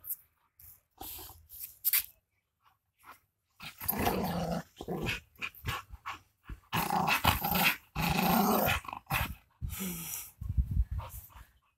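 Adult Rottweiler and Rottweiler puppy play-fighting, growling in long, loud stretches from about four seconds in, after a few short, scattered sounds in the first seconds.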